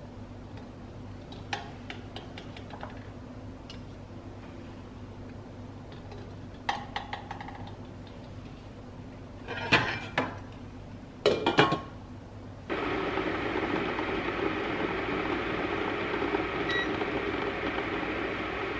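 Eggs set one by one with a metal spoon into a stainless steel pot of water, with scattered light clinks of spoon and shells against the pot; the loudest clinks come just past the middle. About two-thirds of the way in, a steady hiss-and-bubble of water boiling in the lidded pot takes over and cuts off abruptly at the end.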